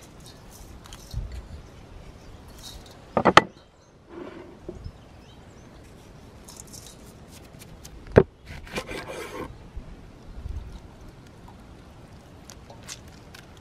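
A knife stirring and scraping through minced lamb, rice and spices in a stainless steel bowl. Two sharp clinks of the blade against the bowl, about three seconds in and about eight seconds in, the second followed by a run of quick scrapes.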